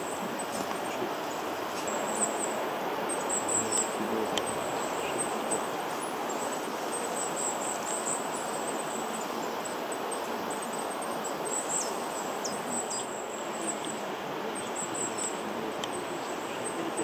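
Steady background hiss with thin, very high-pitched calls of small birds scattered through it, including a few short falling notes about twelve seconds in.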